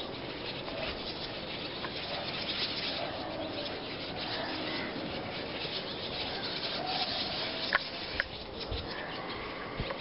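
Dense, continuous chatter of a large flock of small birds calling over one another, with a couple of sharper, louder chirps about eight seconds in.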